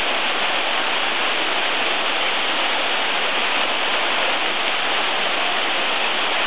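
Waterfall pouring in a steady, unbroken rush of falling water.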